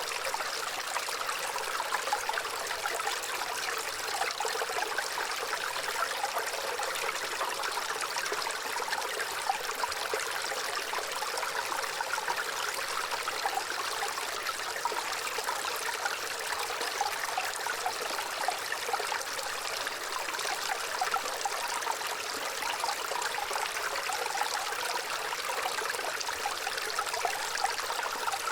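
Gentle running water, a small stream trickling and burbling steadily.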